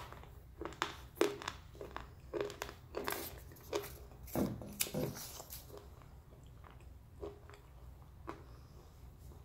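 A person biting and chewing a crunchy slate pencil, a quick series of sharp crunches that thins out to a few scattered crunches after about five seconds.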